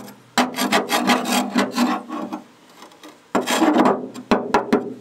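Flat steel bar scraping and chipping at thick rust scale and rotted debris on a steel boat's locker floor. Two bouts of rasping scrapes: the first lasts about two seconds, the second is shorter and comes past halfway. A few sharp clicks follow.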